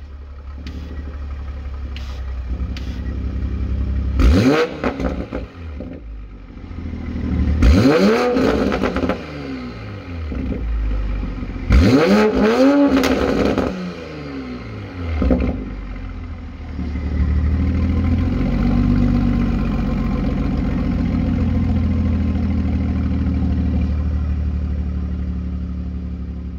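Toyota Supra's 3.0-litre turbocharged inline-six through an AWE Touring Edition non-resonated exhaust, revved in quick blips while parked: several sharp revs that rise and fall back, about four seconds apart, and a smaller one after. It then settles into a steady idle.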